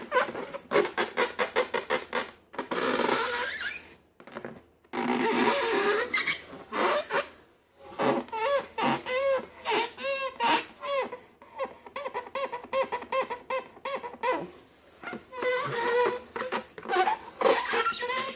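Slime and rubber balloons being squeezed and worked by hand, giving a rapid run of short squeaks and squelches with crackling pops, pausing briefly about four seconds in.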